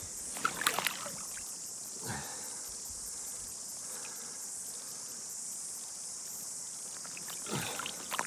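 Steady, high-pitched chorus of insects, with a few short splashy noises about half a second in, around two seconds in, and a cluster near the end as a wet trout is lifted dripping from the water.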